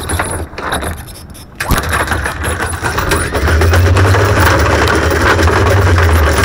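Electric anchor windlass starting up about one and a half seconds in, its motor giving a low hum while the anchor chain rattles over the gypsy.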